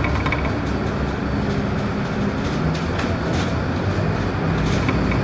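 Steady diesel engine hum, road noise and interior rattles inside a Scania K230UB ('Kurb') Euro 4 single-deck bus under way.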